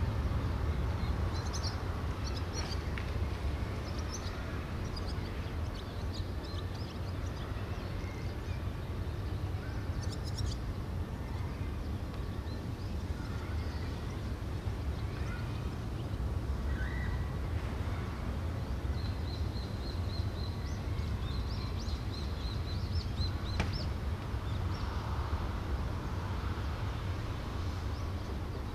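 Outdoor background noise: a steady low rumble, with small birds chirping now and then and a quick run of repeated chirps about two-thirds of the way through.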